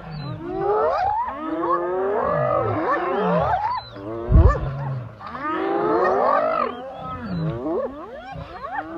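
A pack of hyenas calling over one another during a fight with lions: many overlapping squealing, giggling calls that swoop up and down in pitch, over low growls. A loud low thump comes about four seconds in.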